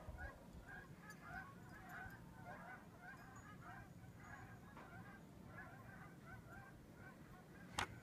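Faint, continuous honking of a flock of geese, many short calls overlapping one another. A single sharp click near the end.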